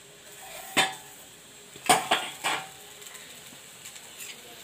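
A steel lid being lifted off a frying pan and set down: about four metallic clanks and clinks, the loudest a little under two seconds in.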